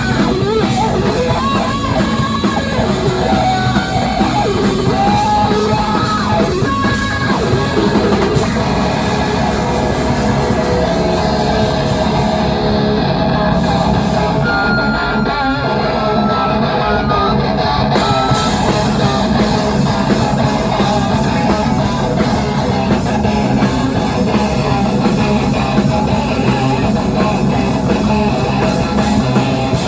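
Live heavy rock band playing loud, steady metal-punk: electric guitars over bass and drums.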